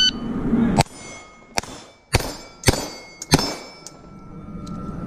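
Shot timer's start beep cutting off, then a Staccato XL 2011-style pistol fired five times at steel plates, about half a second to three-quarters of a second apart, each shot followed by the ring of a struck steel plate.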